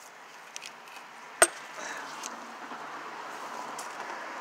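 A single sharp metal-on-metal clank about a second and a half in, as a strong fishing magnet is worked off a rusty iron lamp fitting, with a few lighter clicks just before it. A steady rushing noise fills the background after it.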